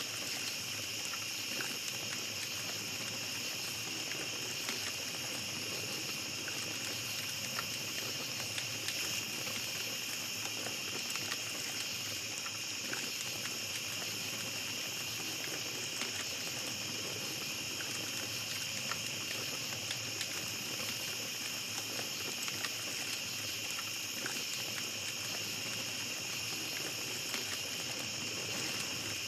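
Campfire crackling with scattered small pops, over a steady high chorus of night insects.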